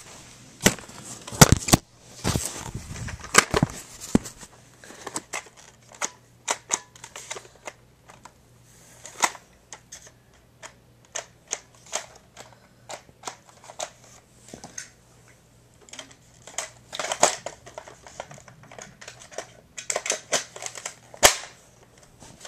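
Clear plastic Nerf Raider CS-35 blaster and its parts being handled and fitted together: irregular hard plastic clicks, knocks and rattles, coming in thicker clusters near the start and again toward the end.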